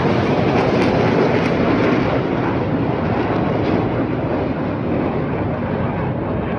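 Jet roar of Black Eagles T-50B aircraft passing overhead, steadily losing its higher hiss and growing slightly quieter as the jets move away.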